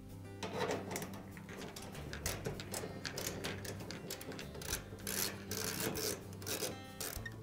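Hands and a tool working inside a clothes dryer's sheet-metal cabinet: quick irregular clicks, rattles and scraping as screws and wire connectors are worked loose.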